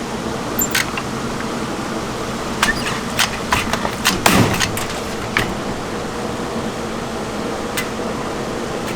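Irregular clicks and knocks from hard candy being worked by hand on a table, over a steady hum of shop machinery. The knocks cluster around the middle.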